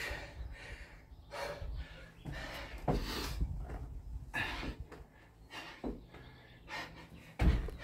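Hard, rasping breaths of a man exerting himself through Navy Seal burpees, about one a second, with a heavy thump near the end.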